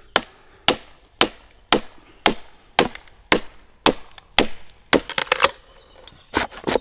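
A mallet striking the back of a froe about twice a second, driving the blade down through an ash log to split off a shingle, with a quicker cluster of knocks about five seconds in. The froe is slow to go through because the split is running into a knot.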